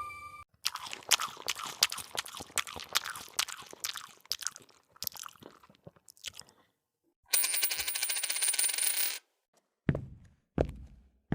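A cascade of small metallic clinks, like coins spilling and settling, thinning out over about six seconds. Then comes a two-second burst of hiss with a high whistle, and near the end dull thumps about twice a second.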